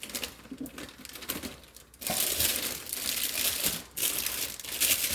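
Plastic packaging crinkling and rustling as it is handled, light and clicky at first, then louder and denser after about two seconds, with a brief pause near four seconds.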